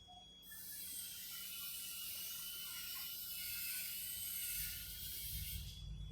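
Insects chirring: a dense, high, rasping drone with a thin wavering tone running through it. It sets in about half a second in and drops out briefly near the end, while a low rumble rises beneath it.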